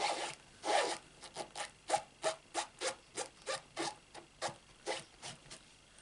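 Cloth rubbing a rubber stamp mounted on a clear acrylic block to clean the ink off: a quick run of short back-and-forth wiping strokes, about three a second, stopping shortly before the end.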